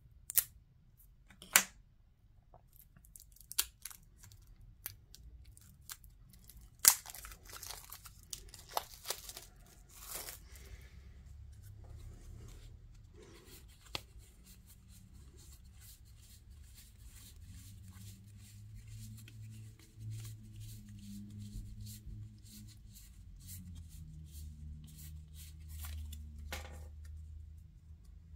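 Game card packs being unwrapped and handled: plastic wrapping crackling and tearing, with sharp snaps of card stock, most of them in the first ten seconds, then quieter rustling of cards being fanned through by hand.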